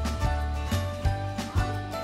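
Upbeat background music with a steady beat.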